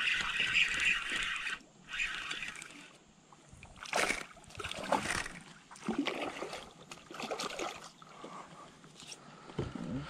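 Spinning reel being cranked for the first couple of seconds as a hooked spotted bass is played in, then the fish splashing at the surface beside the kayak, with sharp splashes about four and five seconds in.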